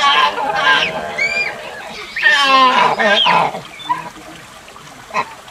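Proboscis monkey calling: a long call at the start, then a louder, wavering call about two seconds in. A short high whistle comes between them.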